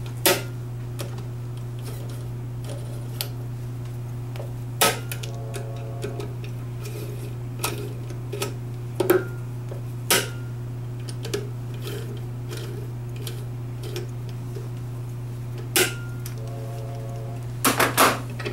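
Sharp metal clicks every few seconds as a torque screwdriver tightens the solenoid screws on a 7.3L Powerstroke fuel injector to 35 inch-pounds, with a quick run of clinks near the end. A steady low hum underneath.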